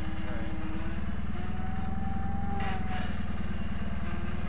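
John Deere riding lawn tractor's engine running steadily while the tractor is driven slowly, with a steady whine joining about a second in. A brief scraping noise comes near the three-second mark.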